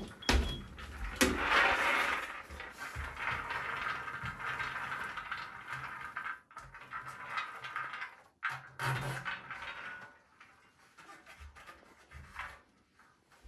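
Freshly roasted hazelnuts rattling and sliding off a metal baking tray onto a cloth towel as the tray is tipped. It is a dense patter of small clicks that thins out and dies down near the end.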